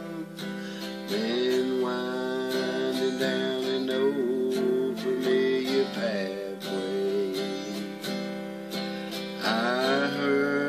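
Country gospel music: strummed acoustic guitar with long held melody notes that slide up into pitch about a second in and again near the end, between sung lines.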